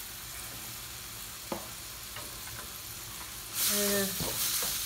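Asparagus and egg sizzling in a wok, with a single light tap about one and a half seconds in. Near the end a wooden spatula starts stirring and scraping through the food against the wok, and the sizzling gets louder.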